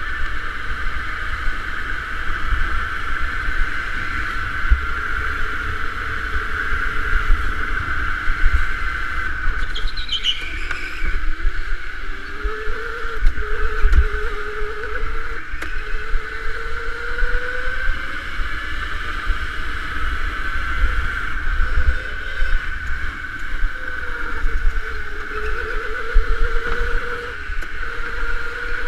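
Electric go-kart's motor whining under hard driving, the pitch of its whine rising and falling as the kart speeds up and slows through the corners, over a steady low rumble of tyres and chassis. A brief high squeal comes about ten seconds in.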